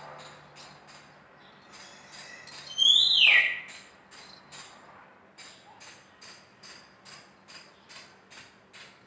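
A loud whistle about three seconds in that rises briefly and then slides sharply down. Behind it, faint high chirps repeat about three times a second.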